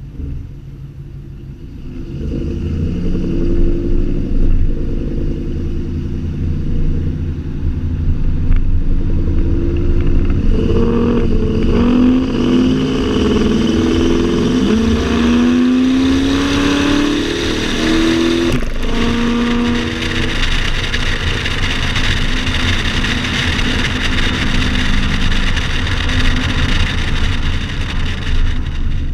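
Supercharged 5.4-litre V8 of a Ford Lightning pickup running through Kooks headers, high-flow cats and a Bassani X-pipe exhaust. The engine picks up about two seconds in, and through the middle stretch the revs rise and fall again and again before settling back to a steady run.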